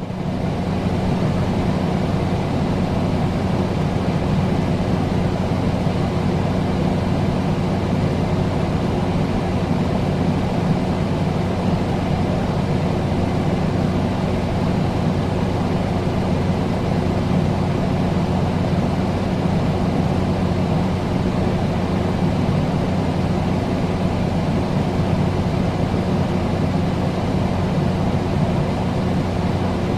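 Air conditioner running steadily: a constant rush of air over a low, even hum. It comes up to full level within the first second.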